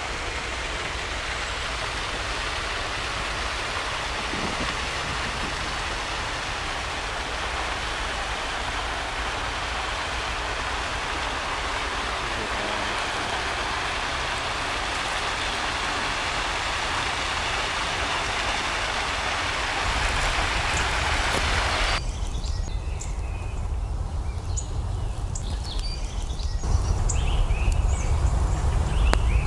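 Steady rushing of a shallow mountain river running over stones. About 22 s in, this cuts to forest ambience: birds chirping over a low rumble that grows louder near the end.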